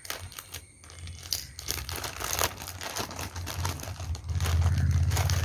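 Clear plastic garment bag crinkling and rustling as it is snipped with scissors and pulled open by hand. A low rumble comes in about four seconds in and is the loudest sound near the end.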